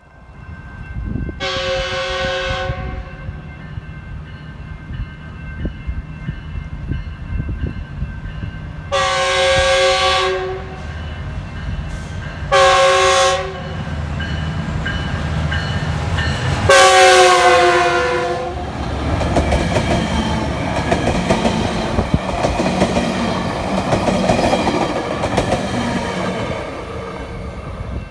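A Metrolink F125 passenger locomotive's multi-note air horn sounds the grade-crossing signal: two long blasts, a short one, then a final long blast. Under the horn the train runs with a low rumble, which grows louder after the last blast as the train nears.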